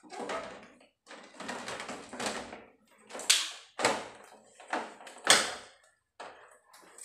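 Plastic front casing of a Matrix Super Inverter split-type aircon indoor unit being handled and pressed into place: a run of sharp plastic clicks and knocks with scraping between them, the loudest a little after the middle.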